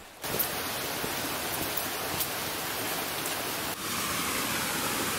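Small waterfall pouring down a rock ledge into a pool: a steady rush of falling water that starts suddenly and grows a little louder about four seconds in.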